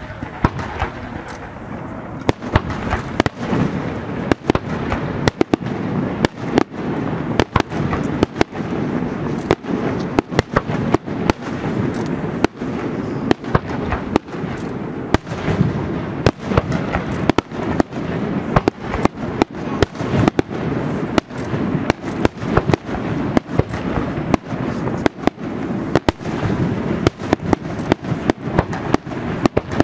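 Aerial firework shells bursting in quick succession: a few sharp bangs a second over a continuous low rumble.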